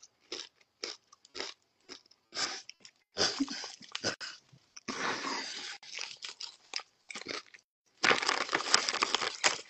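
Chips crunching and being chewed close to the mic, in short crisp bursts about twice a second, then denser. From about 8 seconds in there is a louder run of crackling as a hand rummages in the foil chip bag.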